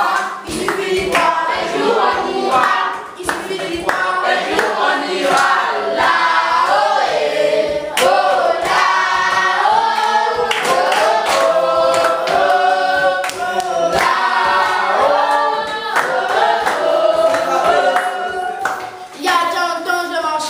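A group of children singing together, with hand clapping.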